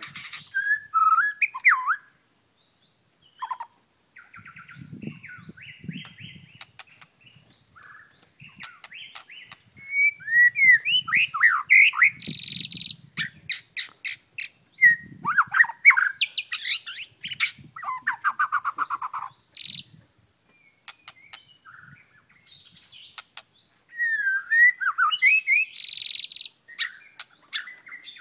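White-rumped shama (murai batu) singing a long, almost unbroken 'marathon' song of varied whistled phrases, rising and falling notes and fast trills. Loud harsh, scratchy notes cut in about a third of the way through, around halfway and near the end, with a couple of brief pauses between phrases.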